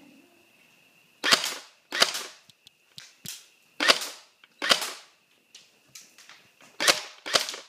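Airsoft gun fired repeatedly at a target: about seven sharp pops at uneven intervals, with a few small clicks between shots.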